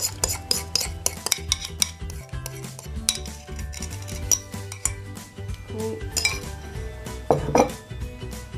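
A metal utensil clinking and scraping against bowls as the last of the liquid is scraped out of a small bowl into a stainless steel mixing bowl: quick clinks at first, then scattered taps, with a couple of louder knocks about seven seconds in.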